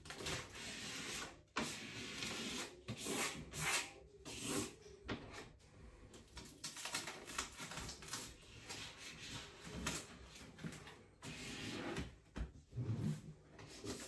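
Rustling of sticker backing paper and hands rubbing vinyl wall stickers flat onto a painted wall, in short, irregular strokes.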